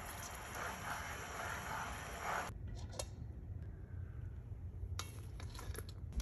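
A pan of liquid bubbling hard with pineapple wedges on metal skewers dipped in it, a steady hiss that cuts off suddenly about two and a half seconds in. After that, a few light clinks of metal skewers against a steel bowl.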